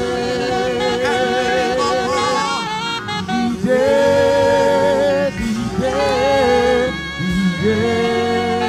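A woman singing gospel through a microphone and PA speakers, in slow phrases of long held notes with heavy vibrato.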